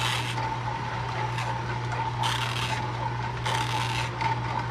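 Tribest Slowstar masticating juicer running: a steady motor hum under a rasping, grinding noise as the slow auger crushes green vegetables. The grinding swells and eases every second or so.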